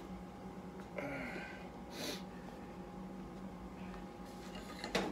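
Quiet workshop room tone with a steady low hum, broken by a few faint handling noises: a short sound about a second in, a brief rustle about two seconds in, and a sharp knock near the end.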